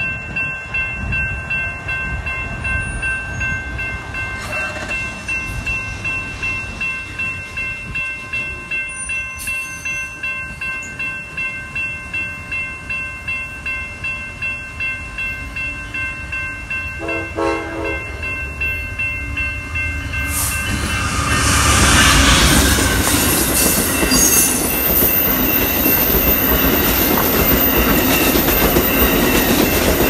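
Railroad crossing bell ringing steadily at about two strokes a second. A little past halfway there is a short blast of a passenger locomotive's horn. About two-thirds through, the Amtrak passenger train arrives and passes loudly, its wheels rumbling and clacking over the rails.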